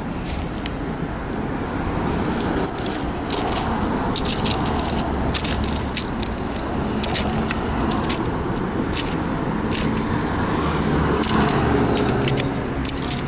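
Loose metal coins clicking and sliding against each other as a finger pushes through them in a small cardboard box, over the steady hum of road traffic.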